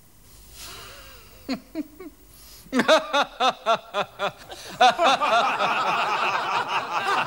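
A man chuckling, then laughing in short rhythmic 'ha-ha' pulses from about three seconds in. Others join in from about five seconds in, so it becomes a group of men laughing together.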